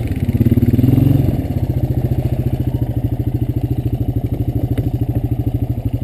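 Honda FourTrax 350 ATV's single-cylinder engine running under way with an even, rapid pulse. It is a little louder for about the first second, then settles to a steady note.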